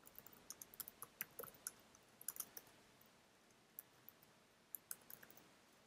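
Faint, irregular clicks of computer keyboard keys being typed, in two short runs with a pause between.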